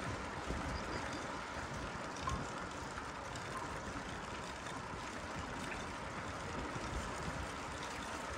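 Steady rumbling noise of riding a bicycle down a street, with no single event standing out.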